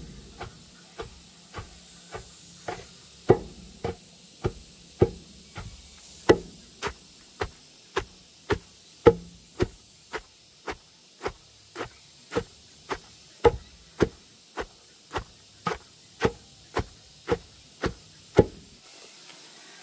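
Steady blows of a hand tool, just under two a second, as in rhythmic hammering or chopping; the strikes stop near the end.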